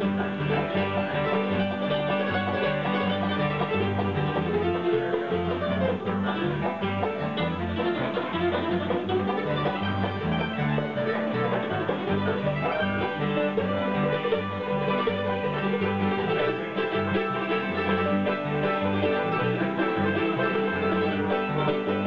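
Acoustic bluegrass-style jam: an F-style mandolin and an acoustic guitar picked together over an electric bass guitar playing a steady moving bass line.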